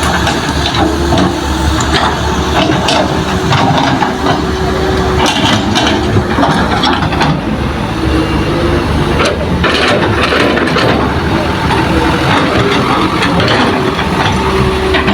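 Heavy diesel engines of Hitachi excavators and a dump truck running steadily while loading soil, with scattered knocks and clatter.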